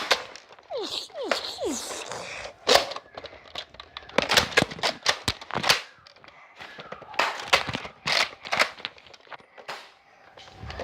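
Foam-dart blasters firing during a Nerf battle: a series of sharp clicks and snaps in quick clusters, with quieter gaps between.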